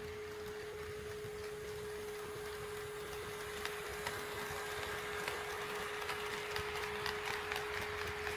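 HO scale model train running on the layout, its rolling noise and wheel clicks over the rail joints growing louder from about halfway in as it approaches. A steady pure tone sounds throughout.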